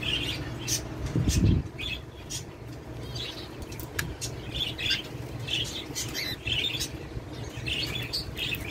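Cockatiels chirping in many short high calls, with a burst of wing flapping about a second in.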